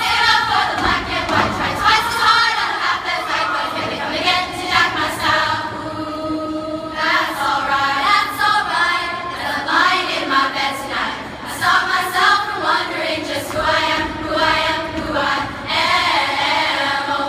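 A large choir of girls' voices singing together.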